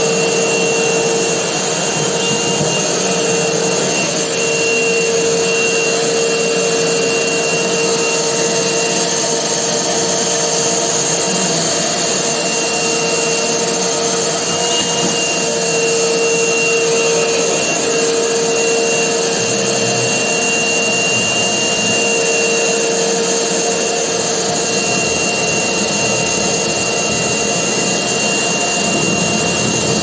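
Shop vac running steadily, its hose nozzle sucking at laundry hanging on a drying rack, with air rushing and fabric rubbing at the nozzle over a steady motor whine.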